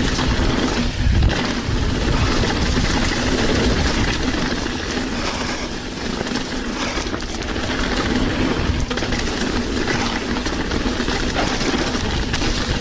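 Mountain bike running down a trail, heard from a chest-mounted action camera: continuous rough tyre and bike rattle noise mixed with wind on the microphone.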